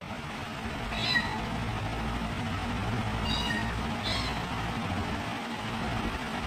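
Very young kittens mewing: three short, high-pitched mews, about a second in, and at roughly three and four seconds in, over a steady low background noise.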